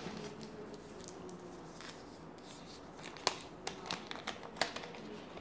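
A new smartphone being handled and slid out of its clear plastic protective sleeve: scattered light clicks and crinkles of plastic from about two seconds in, the sharpest a little past three seconds.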